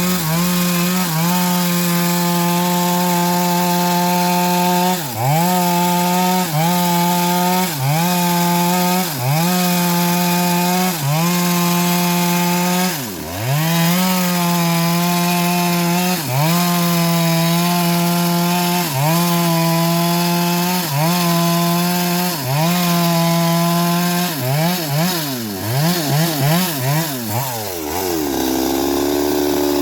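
Engine-driven homemade bandsaw ripping old teak wood, the engine running at high revs. Its pitch dips briefly every second or two as the blade takes load. Near the end it dips several times in quick succession, then drops to a lower, wavering speed.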